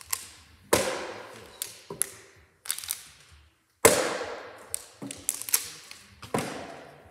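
Plastic water bottle thrown in bottle flips and hitting a wooden tabletop, a series of sharp knocks as it lands, tips and bounces. The two loudest hits come about a second in and just under four seconds in.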